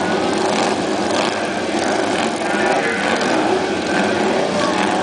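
Several dirt-track racing motorcycles' engines running together, a steady, loud mechanical noise with no break.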